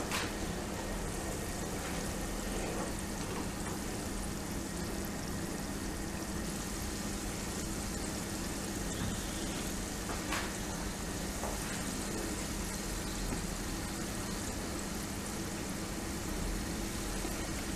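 Modaks deep-frying in hot oil: a steady bubbling sizzle, with a faint pop or two.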